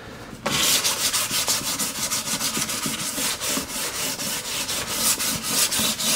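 Sandpaper rubbed by hand in quick back-and-forth strokes over the polyurethane-finished wood of a drawer box, starting about half a second in, with no motor running.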